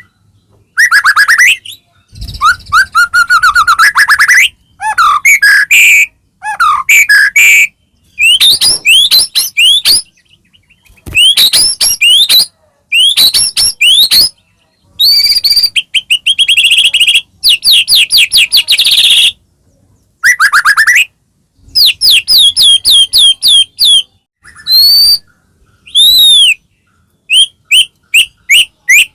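White-rumped shama in full song: a string of loud, varied phrases of rapid repeated notes and sliding whistles, each a second or two long, with short pauses between them.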